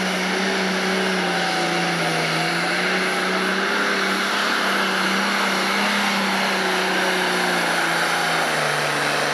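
Pro Stock pulling tractor's turbocharged diesel engine running flat out under load as it drags the weight-transfer sled, a loud steady engine note whose pitch sags lower about eight seconds in.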